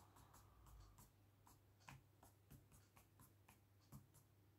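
Pencil tip on paper, faint: a quick run of short strokes, a few a second, as rain dashes are drawn.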